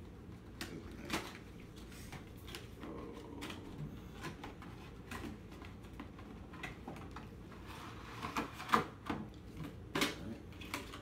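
Cardboard headphone packaging being handled and opened: rustling, scraping and light clicks as a box sleeve is slid off and the inner tray is pulled out, with a cluster of sharper knocks about eight to nine seconds in.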